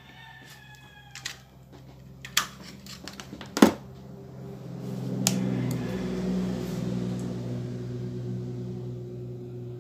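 A sharp click, then an electric motor, the incubator's egg-turning motor, starts about four and a half seconds in and hums steadily. It is being test-run after its turning timer was reset.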